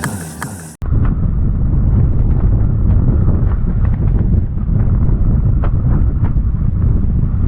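Strong gusting wind buffeting the microphone: a loud, steady low rumble with scattered faint ticks. It begins abruptly about a second in, right after guitar music fades out.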